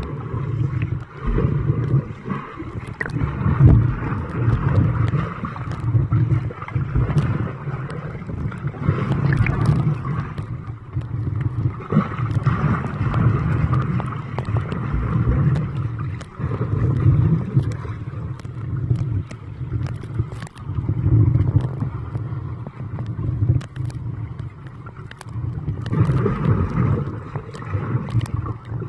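Muffled underwater water noise from a camera held below the surface: a low rumble and sloshing that swells and fades every couple of seconds, with faint scattered clicks.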